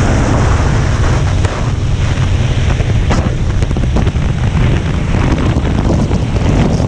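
Loud, steady wind buffeting the microphone, with a low rumble underneath and a few faint clicks.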